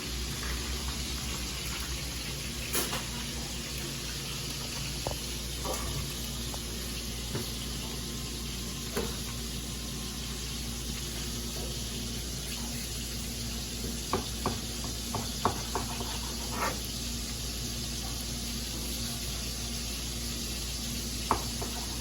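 Shrimp sizzling steadily in a butter base in a sauté pan on high heat, with a few scattered sharp clicks and knocks of kitchen utensils, several close together a little past the middle.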